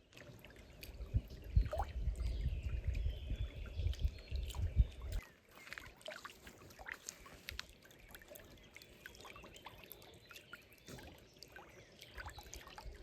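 Wind rumbling on the microphone for about the first five seconds, then quieter lakeside sound of water trickling and lapping with small scattered knocks.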